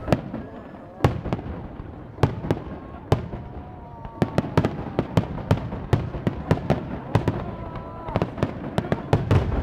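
Starmine fireworks barrage: shells bursting in sharp bangs, a few at a time at first, then in rapid succession from about four seconds in, over a continuous low rumble of bursts and echoes.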